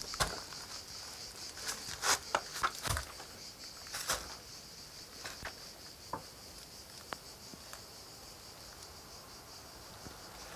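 Insects chirring steadily in a high-pitched band throughout, with footsteps crunching and knocking on loose stone rubble in the first four seconds or so, then only a few scattered clicks.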